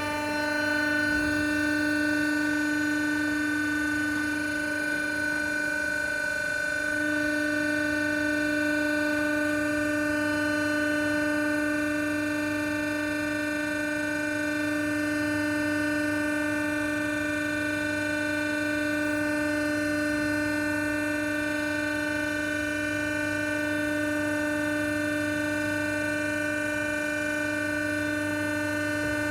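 Steady machine hum with a high whine, holding one pitch throughout with a brief wobble about six seconds in.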